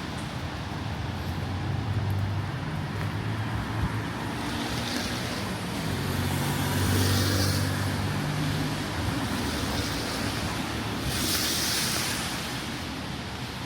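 Rainy city traffic: cars passing on a wet road, their tyres hissing in three swells, over the low hum of engines and a steady rain hiss.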